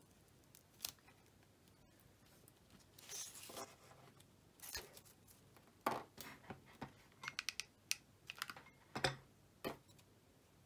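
Faint clicks, snips and rustles of hands working with scissors, wire and tape. There is a rustling stretch about three seconds in, a quick run of small clicks shortly before eight seconds, and the sharpest click about nine seconds in.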